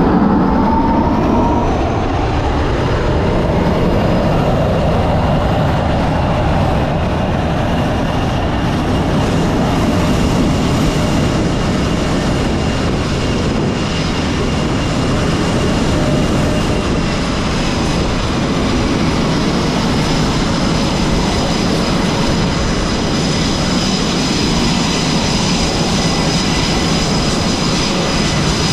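Jet aircraft engines running loud and steady, a dense roar with a high-pitched whine running through it.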